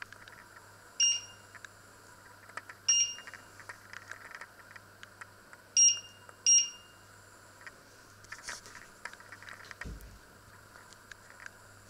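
Touch-control panel of an electric hob beeping as its buttons are pressed to set a cooking zone: four short high beeps, the last two about half a second apart. Faint handling noise and a soft low thump near the end.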